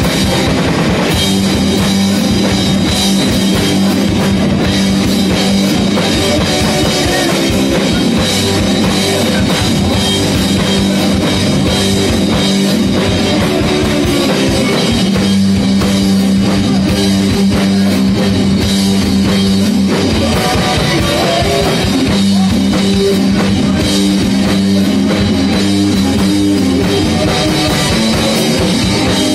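Live rock band playing loud, with drum kit and electric guitar, heard from within the audience.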